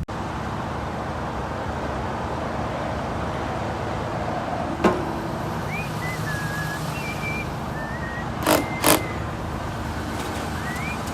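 Cherry picker's engine running steadily. A sharp click comes about five seconds in, and two short loud bursts about half a second apart come about three seconds later.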